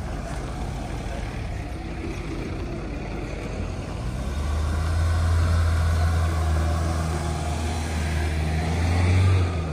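Off-road 4x4's engine working under load while crawling over rough ground. Its steady low drone grows louder about four seconds in and is loudest just before the end.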